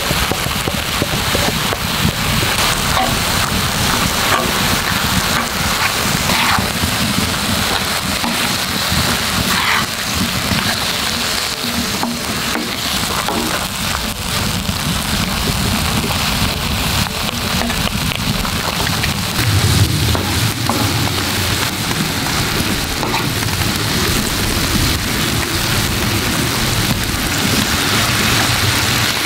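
Pork belly, bean sprouts and gochujang seasoning sizzling steadily on a hot cast-iron cauldron-lid griddle, while a wooden spatula stirs and scrapes the food across the iron.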